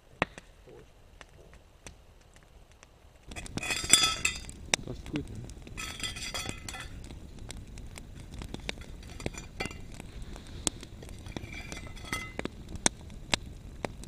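Wood campfire crackling, with many short sharp pops and snaps. Two brief bursts of metallic clinking come about four and six seconds in.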